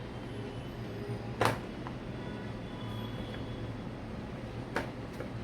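Hard plastic parts of a toy beauty kit being handled, with two sharp clicks, one about a second and a half in and one near the end, over a steady low hum.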